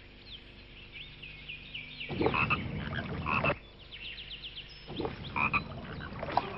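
Pond ambience of frogs croaking, loudest in two bursts about two seconds in and again about five seconds in, with many short high chirping calls throughout.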